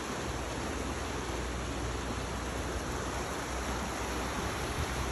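River water flowing over a rocky bed: a steady, even rushing.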